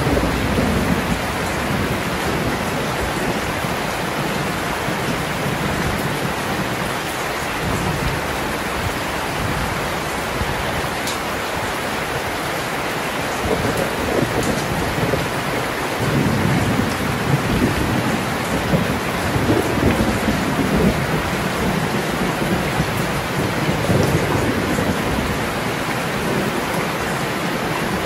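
Heavy rain pouring steadily, with low rolling thunder rumbling at the start and swelling up again several times through the second half.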